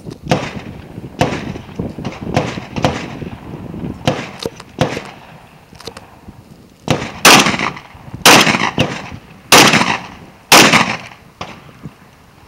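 Semi-automatic shotgun fired at targets: four loud shotgun blasts about a second apart in the second half, after a run of quieter bangs.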